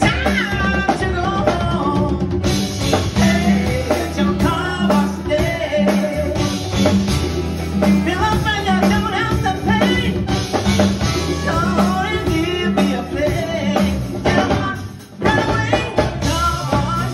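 Live funk band playing with a woman singing lead: trumpet, saxophone and trombone over drums, bass guitar and keyboards, with a steady beat. The music drops away for a moment near the end, then comes back in.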